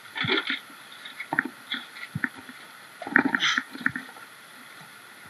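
Irregular knocks and clicks of river stones and gravel being dug with a shovel in shallow river water, with a few brief splashes and sloshes.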